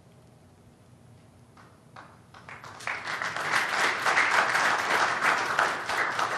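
Audience applauding: a few scattered claps about two seconds in swell into full applause, which begins to thin out near the end.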